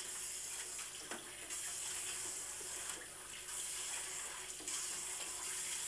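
Water running steadily from a handheld shower hose into a tub, a continuous even hiss.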